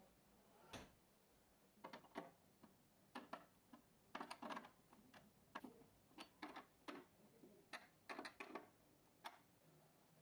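A series of faint, irregular clicks and light taps, some coming in quick clusters near the middle and again near the end.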